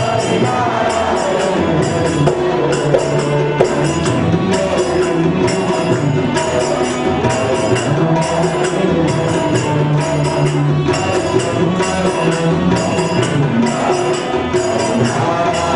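Devotional song accompanied by a harmonium, with a regular high percussive beat of about two strokes a second.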